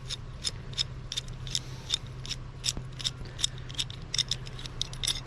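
A metal pipe wrench being handled: irregular light metallic clicks and ticks, several a second, over a low steady hum.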